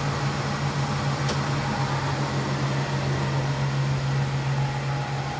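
Hardinge HLV-H super-precision toolroom lathe running in high speed at about 1500 rpm with a chuck on the spindle: a steady low hum from the spindle and variable-speed drive.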